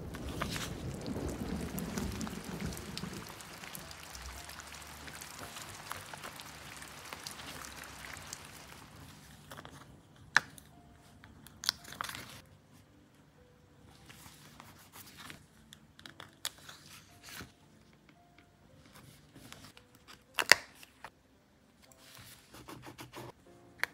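Paper and sticker sheets being handled: several seconds of rustling and crinkling, loudest at the start. Then a few sharp taps and clicks, spread out and separated by quieter handling.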